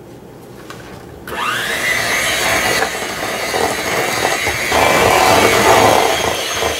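Electric hand mixer switched on about a second in, its motor speeding up and then running steadily as the beaters churn cream cheese and melted chocolate in a stainless steel bowl.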